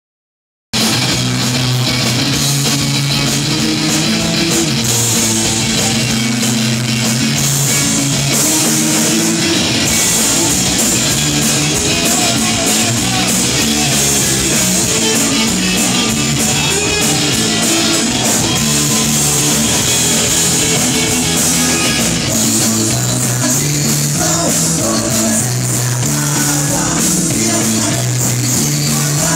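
Live rock band playing loudly, led by electric guitars over a steady bass line. The sound cuts in abruptly less than a second in.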